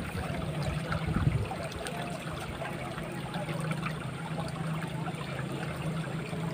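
Water of a small ditch flowing and trickling steadily, with a few low bumps in the first second or so.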